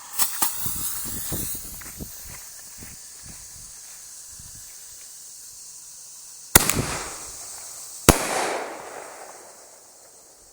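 Consumer canister artillery shell: the fuse catches and sputters, then about six seconds later the lift charge fires from the fiberglass mortar tube with a sharp bang, and a second and a half later the shell bursts overhead with a second bang and a fading crackling hiss. Crickets chirp steadily underneath.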